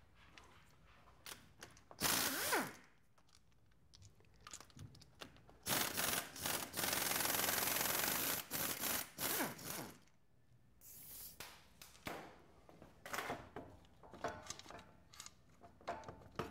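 Quarter-inch air ratchet spinning out drive line bolts: a short run about two seconds in, then a longer steady run of several seconds, with shorter bursts and metal clinks near the end.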